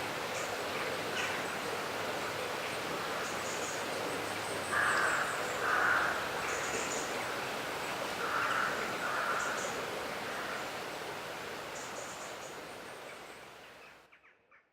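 River water flowing steadily, with small birds chirping high above it and a larger bird giving four louder calls in two pairs midway through; the whole fades out near the end.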